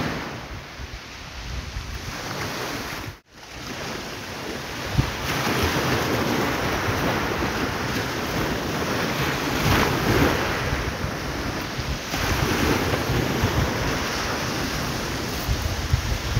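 Surf breaking on the beach, with wind blowing on the microphone; the sound drops out briefly about three seconds in.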